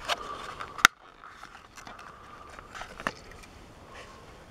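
Clear plastic blister packaging crackling and clicking as a diecast toy truck is pried out of it by hand, with one sharp snap about a second in.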